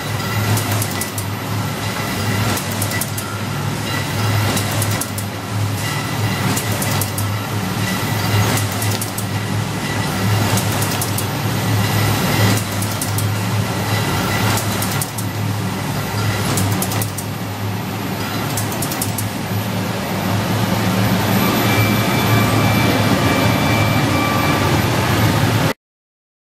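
Wine-bottle case-packing machine running: a steady low motor hum with irregular clacks and knocks from the mechanism, cutting off abruptly near the end.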